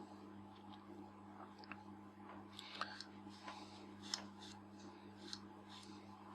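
Faint, scattered small clicks and light scrapes as small lens parts and tools are handled while fitting a plastic cover and screws into the lens body, over a low steady hum.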